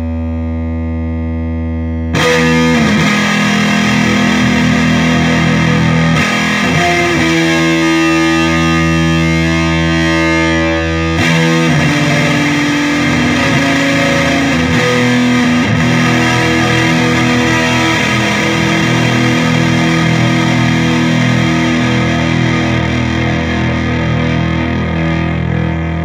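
Electric guitar played through an EarthQuaker Devices Acapulco Gold distortion pedal, heavily distorted. Notes and chords are struck hard about two seconds in and again about eleven seconds in, each left to ring on with long sustain.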